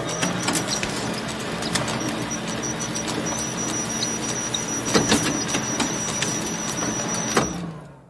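Photocopier running through a copy cycle: a steady mechanical whir with a thin high whine and a few sharp clicks, the loudest clacks about five seconds in. Near the end the machine winds down and stops.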